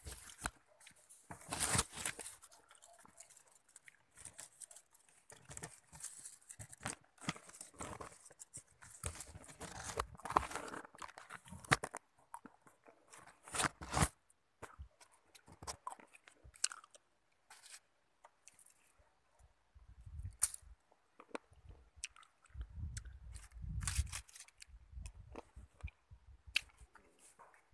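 A person chewing fresh grapes close to the microphone: irregular crunching and wet mouth sounds, with a few low rumbles in the second half.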